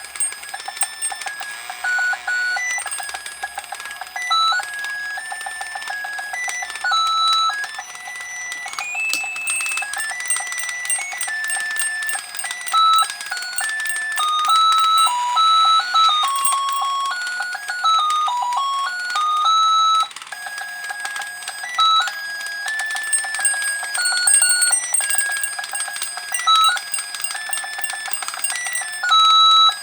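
Battery-operated bell-ringing Santa toy running: a tune in single high electronic notes plays over the fast ringing of its bell and a loud ticking from its gear mechanism, which the owner thinks comes from a gear about to split.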